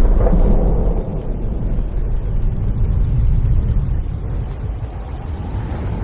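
Deep, heavy bass rumble from a home-theatre sound-test effect. It eases after about a second, swells again around the middle and fades toward the end.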